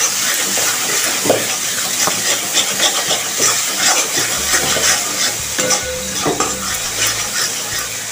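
Spice paste sizzling in hot oil in a kadai while a spatula stirs and scrapes it around the pan, with many short scrapes and taps over a steady sizzle.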